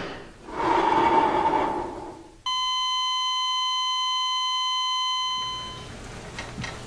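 A steady electronic flatline tone, like a heart monitor's, held at one pitch for nearly three seconds and then cut off. It is preceded by a brief whooshing swell in the soundtrack. After it there is only faint room tone with a low hum.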